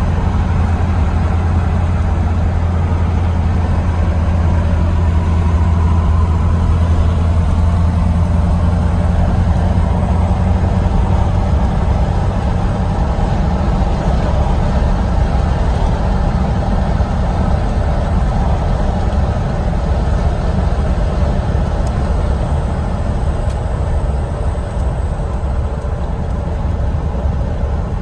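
1982 Corvette's 350 cubic-inch V8 running at a steady cruise, heard from inside the cabin as a low drone, with tyre and wind noise.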